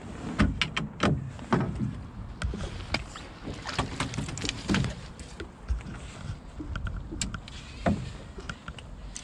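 Water slapping and washing against a small fishing boat's hull, with irregular knocks and clatter on board.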